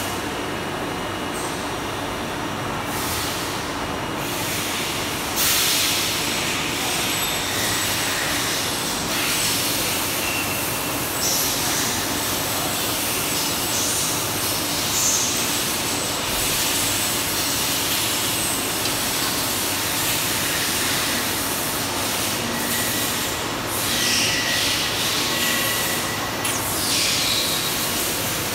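Steady noise of factory machinery running, with several stretches of louder hissing on top.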